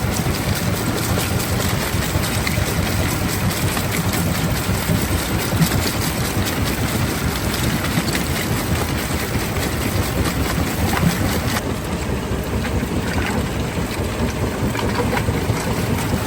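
Stone crushing plant machinery running, a steady heavy rumble with stones clattering and knocking through it. The higher clatter thins out about twelve seconds in.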